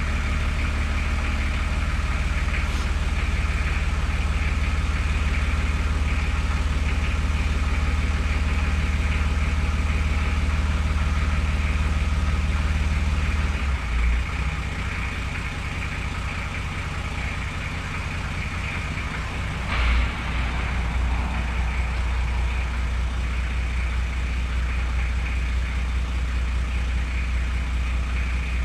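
Toyota LandCruiser HJ45 engine idling steadily after a start-up, its low hum dropping a little about halfway through. Two brief knocks come near the middle and about two-thirds of the way through.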